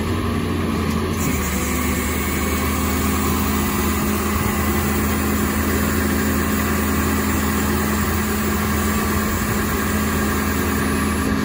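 A Ford 7.3L Powerstroke V8 turbo diesel runs steadily at a raised idle, with the PTO engaged to drive the rollback bed's hydraulics.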